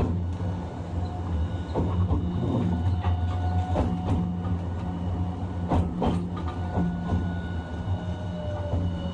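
Running sound heard from inside a Hiroshima Electric Railway 1000 series low-floor tram with a Toyo Denki IGBT-VVVF traction drive: a steady low rumble with faint whining tones and scattered knocks and clicks from the wheels on the track. Near the end, a whine slowly falls in pitch.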